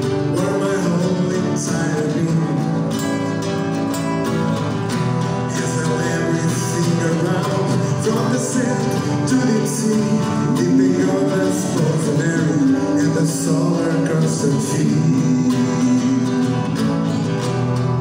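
Two acoustic guitars strumming chords while male vocals sing a song live.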